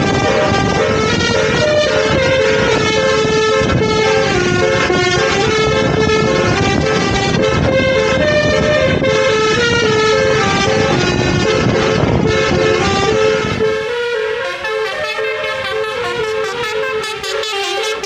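Basuri multi-tone 'telolet' vehicle horn playing a stepping melody over heavy road and engine noise from the moving car. About fourteen seconds in the road noise drops away and the horn tune goes on more clearly.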